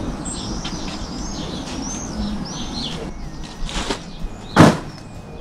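Birds chirping over steady outdoor background noise, then a sharp thud about four and a half seconds in as the egg-drop contraption, an egg taped to inflatable air cushions, lands on gravel.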